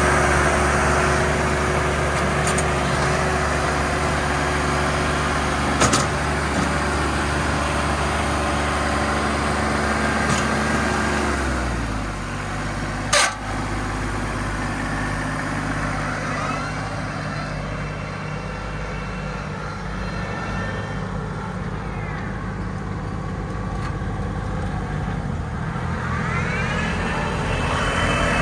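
2016 Massey Ferguson 1739E compact tractor's diesel engine running at a steady raised speed, then dropping to a lower speed about twelve seconds in, with one sharp click shortly after. Later a faint whine rises and falls several times over the engine as the tractor drives.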